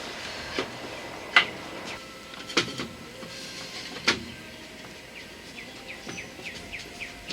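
Several sharp knocks of wooden hive parts being handled and set against each other. A small bird chirps quickly and repeatedly in the background in the second half.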